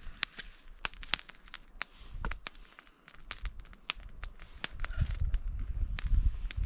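Small wood campfire crackling, with sharp irregular snaps and pops throughout. A low rumbling comes in about five seconds in and is the loudest part.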